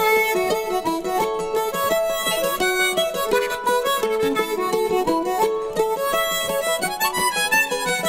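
Background music: a fast instrumental tune led by a fiddle, with quick notes changing several times a second.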